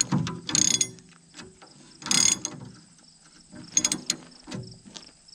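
Hand tools unbolting the teeth from a hydraulic bucket: metal clicking and clanking in a few short bursts.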